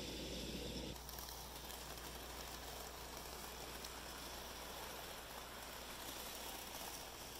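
Model steam locomotive, a Southern Pacific 4449 Daylight, and its passenger cars rolling past on the model track: a faint, even hiss of wheels and motor. A louder, fuller running sound stops abruptly about a second in.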